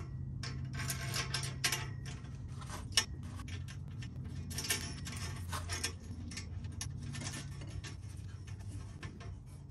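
Steel exhaust U-bolt clamp being fitted by hand around a pipe joint: irregular light metallic clinks and scrapes as the U-bolt, saddle and nuts are handled against the pipe, over a faint steady low hum.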